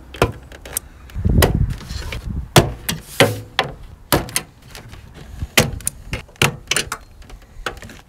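Plastic push-clips snapping out of a 1992 Mazda Miata's door panel as the door card is pried and pulled off the door: a string of sharp snaps and clicks, with a duller thump of the panel about a second and a half in.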